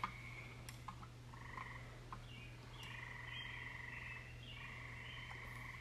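Faint trilling frog calls, several in a row starting about a second and a half in, over a steady low hum, with a few light clicks of metal pump parts being handled.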